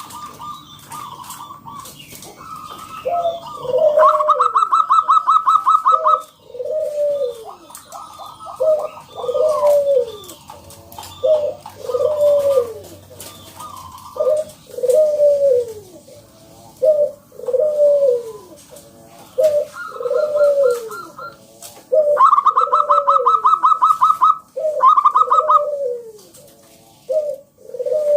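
Zebra doves (perkutut) cooing: a repeated falling coo about once a second, with a fast, higher-pitched rattling trill heard twice, near the start and again about two thirds of the way in.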